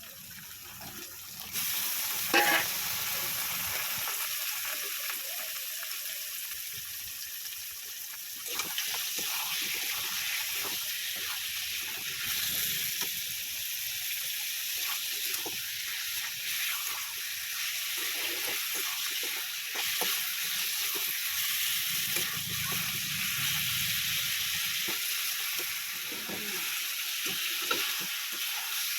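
Chicken pieces sizzling in hot oil with fried onions in a kadai, with a spatula stirring and scraping the pan in short strokes. The sizzle starts about a second and a half in, and there is one sharp clack against the pan soon after.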